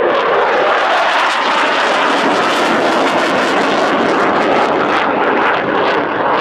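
Saab JAS 39 Gripen's single Volvo RM12 turbofan heard from the ground as the fighter manoeuvres in a display. It is a loud, steady rush of jet noise with a rough crackle running through it.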